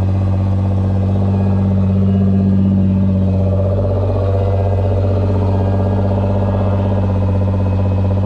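Nissan GT-R R35's twin-turbo 3.8-litre V6 idling steadily just after a cold start, with a slight swell and settle about three to four seconds in.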